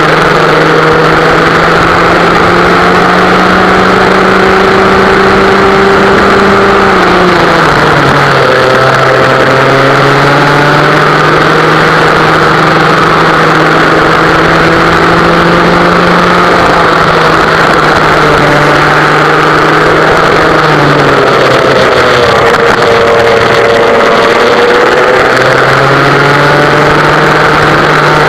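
Vintage West Bend two-stroke kart engine running hard at racing speed, loud and close. Its pitch falls sharply twice, about a third of the way in and again near the three-quarter mark, as the throttle is lifted for corners, then climbs back as it pulls out of each.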